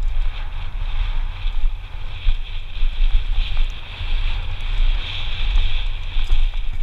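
Wind buffeting a head camera's microphone as a mountain bike runs fast down a rough dirt trail. A steady low rumble is overlaid with a constant high hissing whirr.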